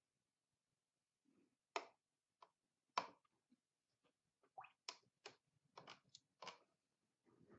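A dozen or so sharp, irregular clicks and taps over about five seconds, the loudest near the start, followed by a soft low rustle near the end.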